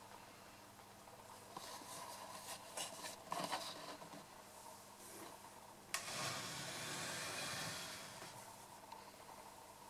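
Faint steady hum and hiss from a switched-on vintage bakelite Kriesler radio, with crackles in the first few seconds and a sharp click about six seconds in, followed by a couple of seconds of louder hiss that fades away.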